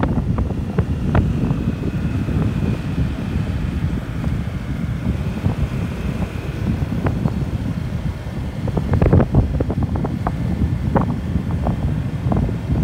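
Motorcycle riding on a rough unpaved road: wind buffeting the microphone over the engine's low rumble, with scattered knocks and rattles from bumps, several close together about nine seconds in.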